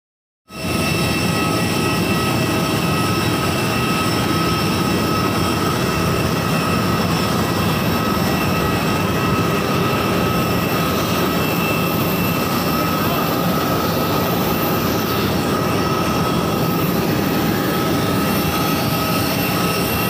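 Airliner turbine engine noise on an airport apron: a loud, steady rumble with a high, steady whine over it, starting abruptly about half a second in.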